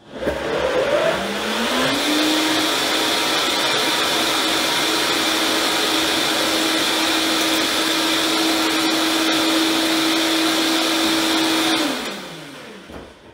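High-speed countertop blender running on low, blending a thick butternut squash cream filling. The motor's whir climbs in pitch for the first couple of seconds, holds steady, then winds down and stops about twelve seconds in.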